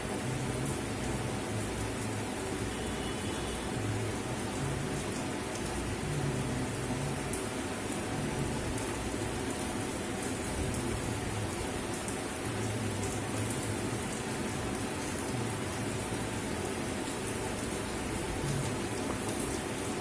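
A steady hiss with an uneven low rumble under it, with no distinct knocks or tool clicks standing out.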